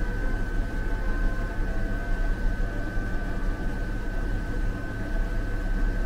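DC-powered air conditioner running: a steady whir with a constant high-pitched whine over a low rumble.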